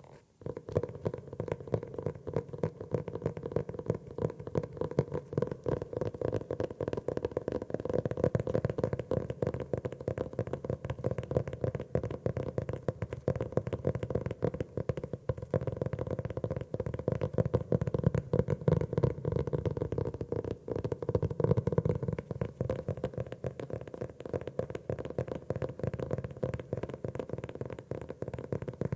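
Fingers tapping rapidly on a notebook: a continuous fast patter of many small taps.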